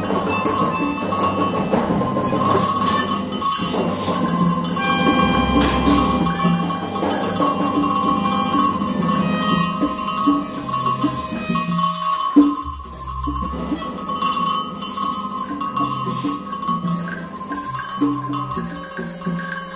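Free improvised ensemble music: a steady high held tone under scattered short pitched notes, bell-like ringing, low sounds that come and go, and clicks. The texture thins out briefly a little past the middle, then fills in again.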